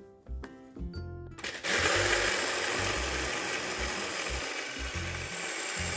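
Electric hand blender with a chopper bowl starts about a second and a half in and runs steadily, its blades crushing potato chips into crumbs.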